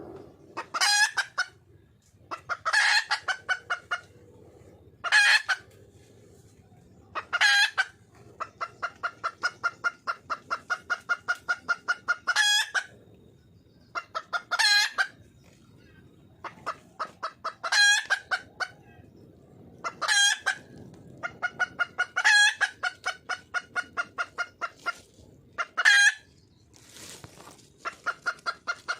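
Red junglefowl hen calling: runs of rapid clucks, about five a second, broken every two to three seconds by a louder, sharper call. This is a hen's call to attract a male.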